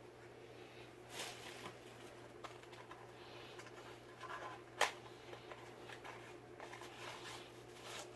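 Quiet handling noises: light rustling and scattered small clicks over a steady low hum, with one sharp click a little before the middle.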